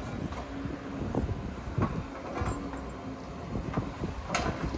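Demolition machinery running steadily under a low rumble, with irregular crunches and clatters of debris breaking and falling, the loudest near the end.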